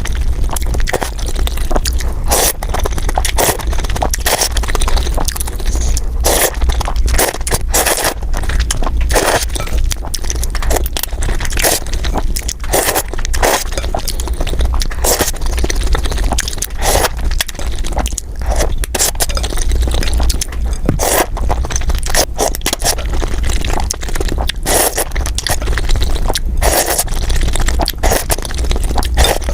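Close-miked eating of bún bò Huế noodle soup: irregular wet slurps and chewing noises, several a second, over a steady low hum.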